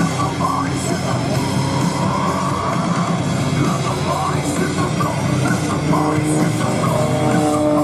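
Loud hard rock music with guitar.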